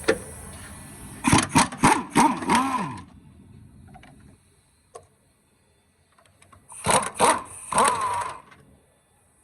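Power impact wrench hammering in two bursts, its motor pitch rising and falling, while it loosens the engine mount bolts. The first burst comes about a second in and the second about seven seconds in.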